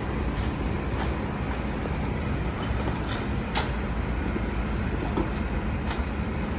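Rear-loading garbage truck's engine running steadily at the curb, with a few sharp knocks and rustles as trash bags are thrown into the hopper.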